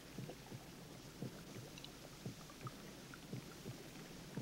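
Faint water in a bath pool dripping and lapping: scattered small irregular plops over a low steady hum.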